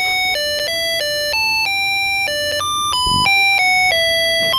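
Music chip on an electronic playground circuit kit playing a tune through its small speaker, triggered by touching a contact on the circuit: a continuous string of short electronic notes, each about a third of a second, stepping up and down in pitch with no gaps.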